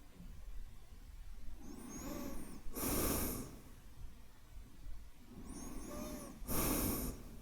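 A man breathing slowly and deeply close to the microphone as a soothing sleep sound. There are two breaths about four seconds apart, each a softer drawn breath ending in a short, louder puff of air.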